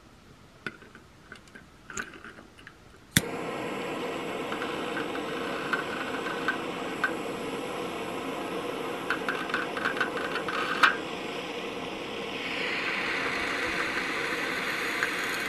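A few light clicks, then a jet torch lighter snaps alight about three seconds in and its flame hisses steadily against an aluminium soda can, with scattered crackles. The hiss grows brighter about twelve seconds in.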